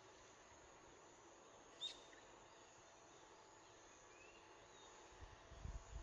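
Faint outdoor countryside ambience: a low steady hiss with faint insect and bird calls, and one short sharp chirp about two seconds in. Wind rumbles on the microphone near the end.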